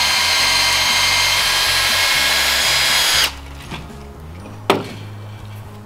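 Cordless drill running at a steady high speed, boring into a dry eucalyptus branch, then cutting off abruptly a little past three seconds in. A single sharp click follows about a second and a half later.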